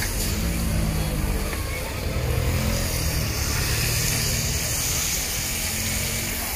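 An engine running steadily: a continuous low hum, like a motor vehicle idling close by.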